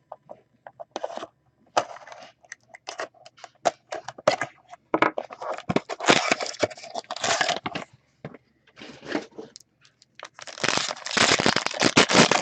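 Sealed trading-card box being opened by hand: plastic wrap and cardboard crinkling, clicking and tearing, growing busier about halfway through. Near the end a foil card pack is torn open, a dense crinkling rip.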